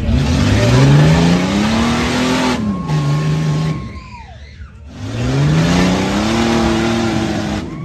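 Off-road vehicle's engine revved hard twice, each time climbing in pitch, holding, then falling away, with a loud hiss under each rev.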